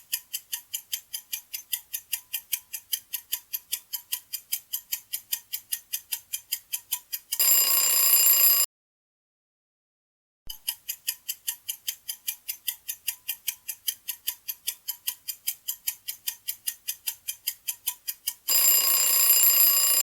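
Countdown timer sound effect: rapid, even clock-like ticking that ends in a loud alarm ring lasting about a second and a half. After a short silence the ticking starts again and ends in a second ring near the end.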